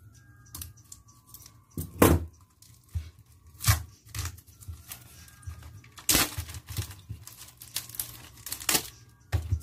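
Clear plastic shrink wrap being cut with scissors and torn off a book: a series of sharp rips with crinkling in between.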